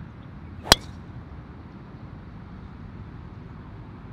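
A single sharp crack of a golf driver striking the ball off the tee about a second in, the ball caught low on the clubface. A steady low rumble runs underneath.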